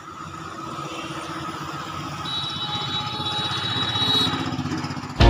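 A motor vehicle's engine going by on the road, a fast low pulsing that grows steadily louder until about four seconds in, then eases off a little.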